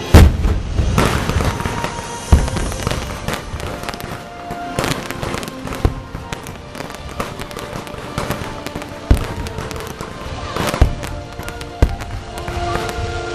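Aerial firework shells bursting: a very loud boom right at the start, then more sharp bangs every one to three seconds with crackling between, over background music.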